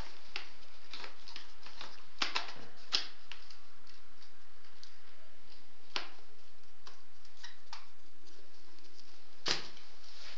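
Scattered light clicks and taps from hands handling a new laptop and its small plastic parts, with sharper clicks about two, three, six and nine and a half seconds in.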